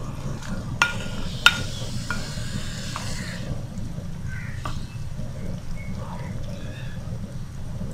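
Cut okra dropping into hot oil and frying with a steady sizzle, loudest over the first three seconds or so and then softer. A few sharp clicks in the first two seconds as the okra is pushed off a plate with a wooden spatula.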